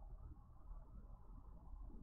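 Near silence: faint, low room tone.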